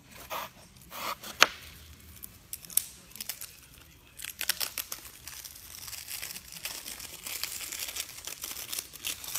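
Plastic packaging crinkling and rustling as it is handled, with a few sharp clicks early on, the sharpest about a second and a half in, then a dense, steady crackle through the second half.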